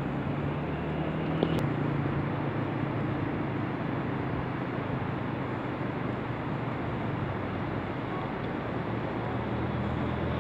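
Steady rush of a fast-flowing river running over rapids.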